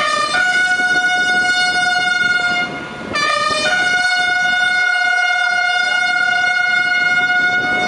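Trumpet call: twice, a short lower note steps up to a long held note. The first phrase lasts about three seconds and the second about four.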